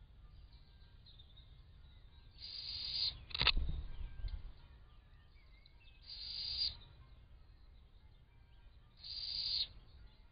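Owl chick's begging call: three hoarse, hissing wheezes, each under a second long, about three seconds apart. A single sharp knock about three and a half seconds in is the loudest sound.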